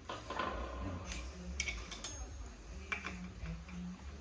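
A few light clicks and clinks of small metal parts being handled and fitted on a knife-grinding jig, such as a knurled screw going onto the wheel's mount, over a low steady hum.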